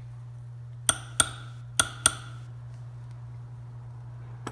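Hammer tapping a punch to drift a pistol's rear sight sideways in its dovetail for windage: four light, sharp taps in two quick pairs, about a second in and again near two seconds. A steady low hum runs underneath.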